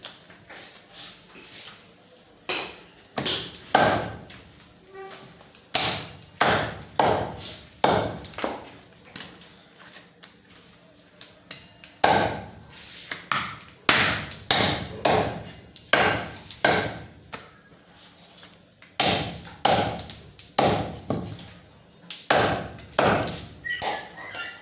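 Butcher's knife chopping through goat legs: repeated sharp chops in irregular runs, with short pauses between them.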